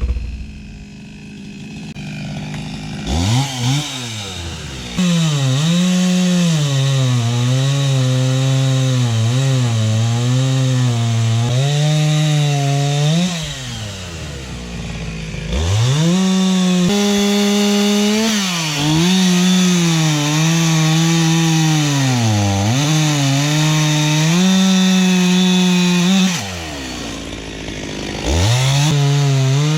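Two-stroke chainsaw revved up and cutting into tamarind wood, its pitch dipping and recovering as the chain bogs under load. It drops back to idle twice, about halfway through and near the end, and revs up again each time.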